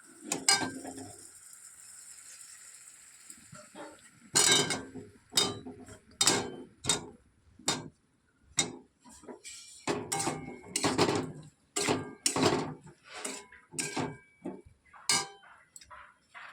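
Metal utensil clinking and knocking against a cooking pot in a run of irregular strikes, one or two a second. The first few seconds hold a steady hiss.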